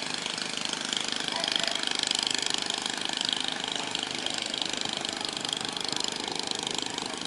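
A boat engine running steadily, a constant even drone.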